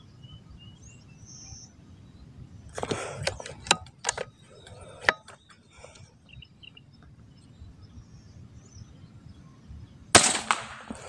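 An air rifle firing a 15-grain slug, a single sharp shot about ten seconds in with a short fading tail. Earlier there are a brief rustle and a few sharp clicks.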